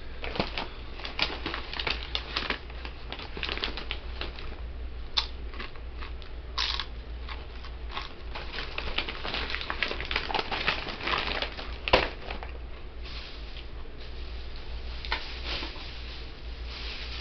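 Irregular crinkling, crackling and clicking handling noises close to the microphone, with a steady low hum underneath.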